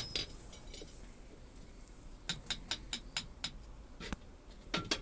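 Light hammer blows on an iron bar at the anvil, squaring up the bar behind its forged point: a few taps, then a quick run of about six strikes, roughly four a second, and a couple more near the end.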